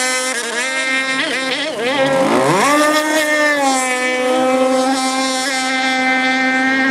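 Gas RC speedboat's two-stroke QD25 engine running at speed. Its pitch dips, climbs sharply about two seconds in, then holds a steady high whine at full throttle.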